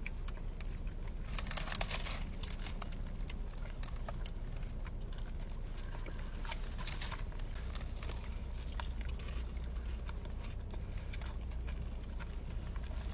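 Close-miked chewing and mouth sounds from eating a Taco Bell grilled cheese burrito: scattered wet clicks and smacks, with a brief rustle about a second and a half in, over a steady low hum.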